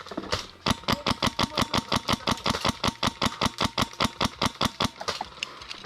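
Airsoft gun firing a long full-auto string of rapid, evenly spaced shots that stops about five seconds in.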